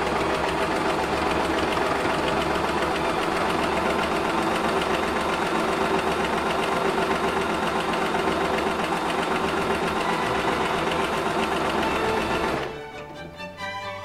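Singer Fashion electric sewing machine running steadily as it stitches fabric, stopping suddenly near the end.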